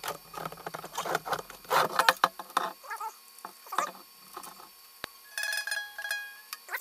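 Nylon ukulele string scraping and rubbing as it is pulled through the plastic bridge of a 3D printed ukulele, with scratchy handling clicks. About five and a half seconds in comes a short pitched squeak as the string is drawn taut.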